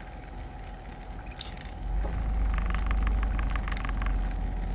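Low vehicle rumble heard inside a car cabin, growing louder about two seconds in, with light crackling on top and a faint steady hum.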